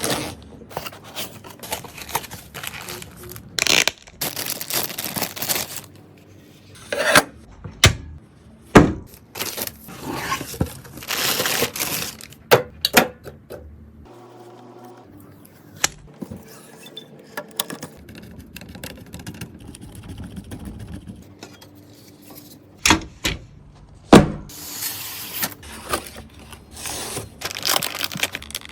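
Computer parts being handled and fitted together by hand: irregular clicks, knocks and scrapes of hard plastic and metal, with stretches of rustling.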